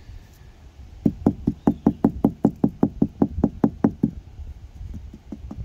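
Rapid tapping on a 2007 Chevy HHR's windshield glass, about six light knocks a second for some three seconds, then fainter scattered taps near the end. The glass is being tapped around a chip under a repair kit's vacuum to help work the air bubbles out of the crack.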